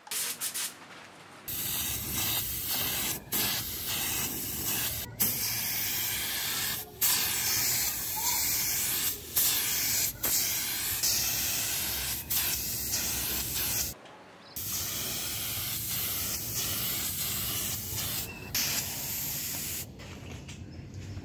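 Paint spray gun hissing as it sprays mixed paint onto a steel bicycle frame and fork, in long passes broken by short stops as the trigger is let go, with a longer pause about two-thirds of the way through. The spraying stops shortly before the end.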